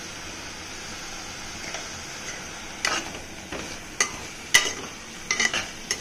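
Thick coriander masala sizzling gently in a pressure cooker. From about three seconds in, a slotted metal spoon stirring it scrapes and knocks against the pot several times.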